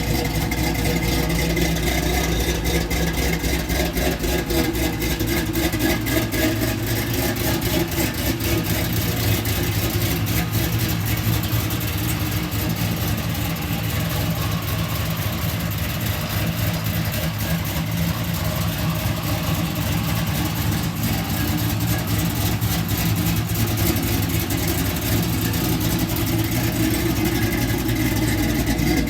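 LS V8 engine in an Oldsmobile Cutlass idling steadily just after starting, now running once its fuel pump relay circuit has been fixed.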